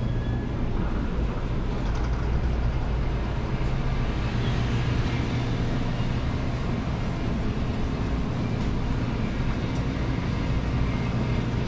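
Steady low hum and hiss of a convenience store's refrigerated coolers and air conditioning. A high steady tone stops about half a second in.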